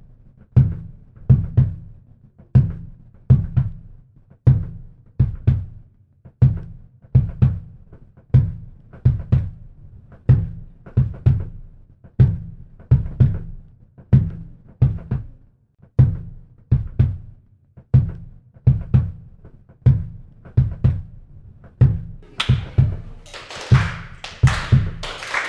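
Steady percussive music beat: a pair of low, kick-drum-like thuds with a short click about once a second, repeating evenly. A brighter, hissy layer joins near the end.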